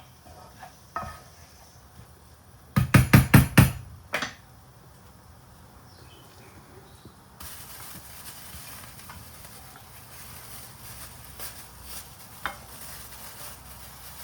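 Kitchen work sounds: a quick run of about six knocks, with one more a moment later, then a steady hiss that starts about halfway through, with a few light clicks over it.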